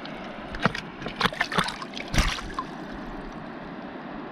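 A run of sharp splashes and knocks in the first two and a half seconds, the loudest a little past two seconds in, over a steady rush of river water that then goes on alone.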